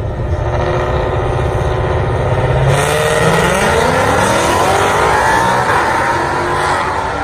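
Two drag-racing cars, a white S550 Ford Mustang and a red Dodge, revving at the start line, then launching hard and accelerating away, their engine pitch climbing steadily as they pull through the gears.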